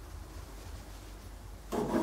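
Quiet steady low hum of room tone. Near the end a short, louder noise of unclear source lasts under half a second.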